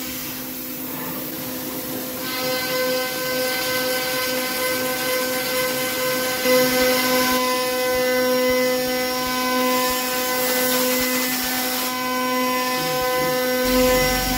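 PrintNC CNC router spindle milling 6061 aluminium with an 8 mm two-flute end mill during adaptive pocketing: a steady whine made of several tones that shifts in strength a few times as the cut changes. Under it is a hiss from the mist coolant.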